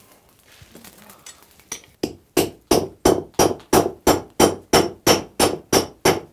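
Blacksmith's hand hammer heading a red-hot iron nail held in a nail-heading tool on an anvil. After about two quiet seconds comes a steady run of ringing metal-on-metal strikes, about three a second.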